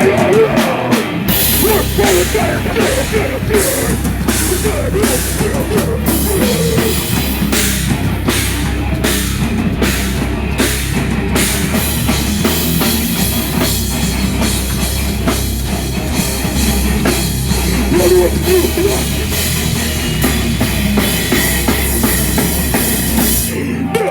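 Live heavy metal band playing loudly: distorted guitars, bass and a drum kit pounding, with the full band kicking in about a second in and breaking off near the end.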